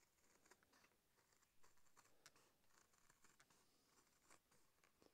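Faint crunching snips of scissors cutting through a sheet of leather, several uneven cuts.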